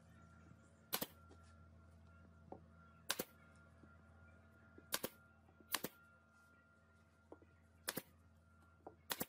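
Pneumatic brad nailer firing about six times, each shot a sharp double clack, spaced one to two seconds apart, over a faint steady hum.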